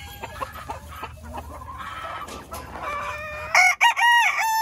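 Gold laced Polish chickens clucking, then a rooster crows loudly about three and a half seconds in, a long call of several stepped notes.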